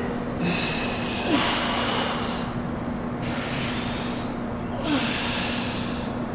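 A person breathing hard from exertion during supine push-ups, with several long, forceful breaths, one about every one and a half to two seconds.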